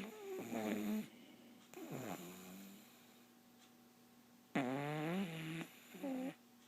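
Snoring in separate loud, pitched snores: one carrying over the first second, a fainter one about two seconds in, then a longer snore from about four and a half seconds and a short one just after six seconds.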